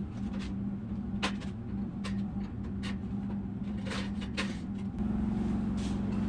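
Sharp metal clicks and rattles, about one a second and then several close together near the four-second mark, as a wire-cage guard on an air compressor is unclipped with pliers and lifted off. A steady low hum runs underneath, getting a little louder about five seconds in.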